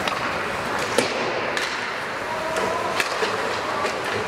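Ice hockey play: a handful of sharp clacks of sticks and puck, the loudest about a second in and another about three seconds in, over steady background noise.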